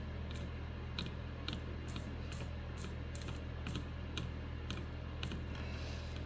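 Faint, irregular small clicks and ticks from fine soldering work on a circuit board, over a steady low hum.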